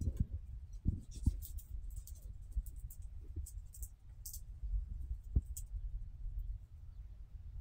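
Phone microphone handling noise: a low rumble with a few soft knocks and scattered faint clicks.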